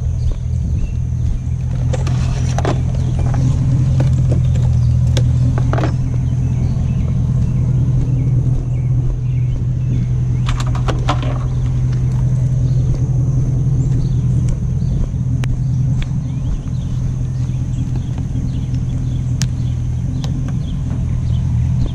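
Pickup truck engine running with a steady low drone, a few light knocks and rattles over it.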